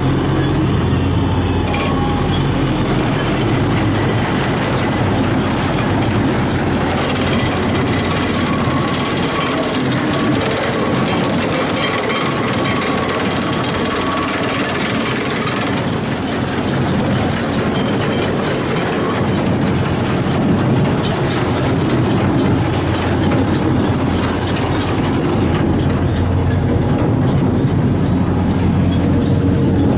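Tractor engine running steadily with the continuous clatter of a Challenger LB34B large square baler's mechanism being run.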